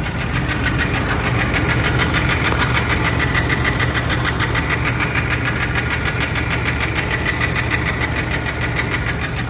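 Engine running steadily with a rapid, even knock, which the owner places at the bellhousing, starter or oil pan area.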